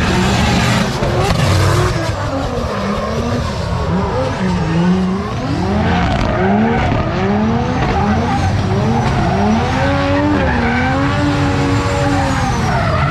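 Drift cars sliding through a corner, their engines revving hard with the pitch rising and falling again and again as the throttle is worked, over skidding, squealing tyres.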